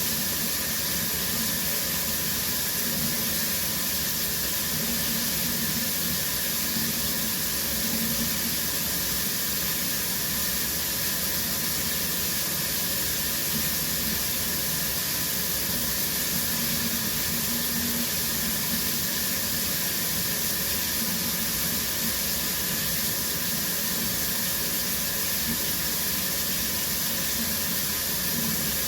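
Shower running steadily, its spray falling in an even hiss.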